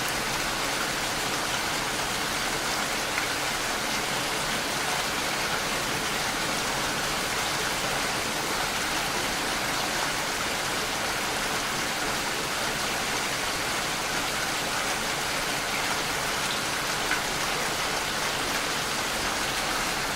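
Steady rain falling, an even hiss of drops on a surface with a few louder drips.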